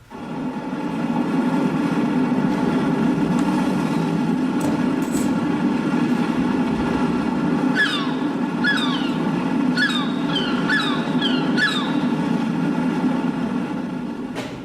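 Played sound effect of a landing-boat engine: a loud, steady drone that starts suddenly and fades out at the end. From about eight to twelve seconds in, it is joined by a run of short, high, falling squeals.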